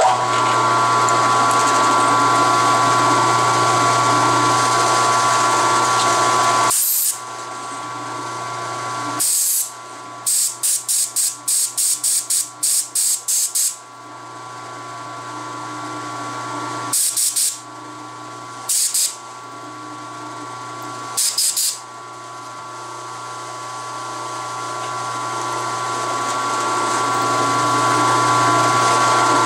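Mill-drill spindle motor running with a steady hum and whine while a two-flute end mill is fed down into a cast-iron lathe saddle to cut an oil hole. Short sharp bursts of hiss break in several times, with a rapid run of about ten of them in the middle, and the machine grows gradually louder toward the end.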